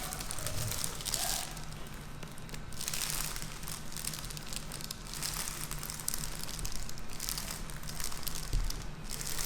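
Soft rustling and crinkling that comes and goes in uneven waves, as of cloth or paper being handled and moved against.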